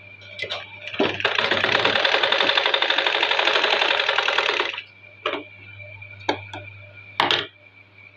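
Black household straight-stitch sewing machine running at a fast, even stitching rhythm for about four seconds while sewing a narrow tuck in blouse fabric. It stops, and a few separate clicks follow.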